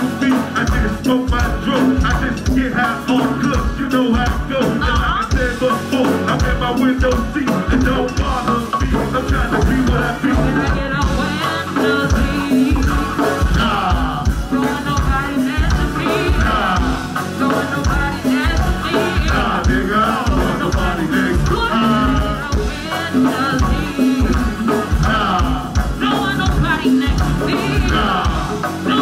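Live band music with a steady drum beat and melodic lines over it, playing without a break.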